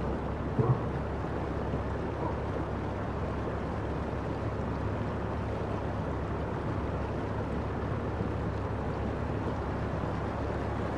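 Muddy floodwater rushing steadily along a road and over fields: a continuous, even rushing noise from a flash flood.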